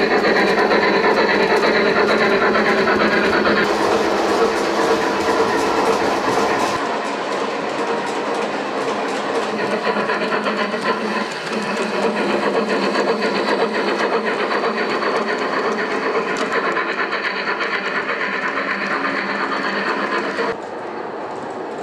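Gauge 1 model steam locomotive running along the track: a steady running noise of its motor and wheels on the rails, with fast clicking over the track. The sound changes abruptly about seven seconds in and again near the end.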